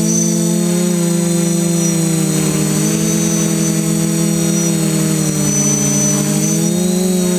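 FPV quadcopter's electric motors and propellers buzzing steadily, heard from the camera on board. The pitch sags about five seconds in and climbs back near the end as the motors slow and speed up again.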